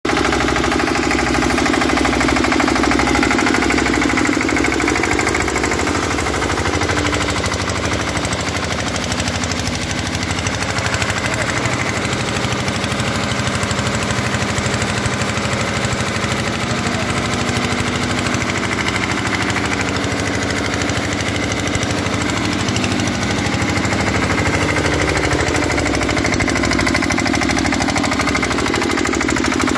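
Single-cylinder stationary diesel engine running steadily under load, driving a centrifugal blower that sucks rice husk through a flexible hose, with a steady rush of air and husk over the engine's pulsing beat.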